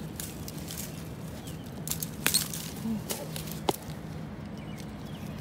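Dry bamboo canes and fallen bamboo leaves rustling and crackling as a person pushes through a dense bamboo thicket, with a few sharp cracks between about two and four seconds in.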